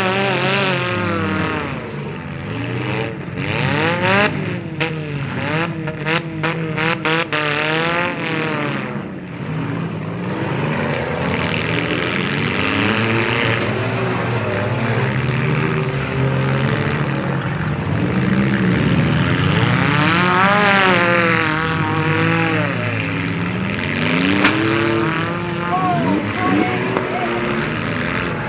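Several demolition derby compact cars' engines revving up and down as they spin their wheels and ram each other in the mud. A quick run of sharp bangs and clatters comes a few seconds in.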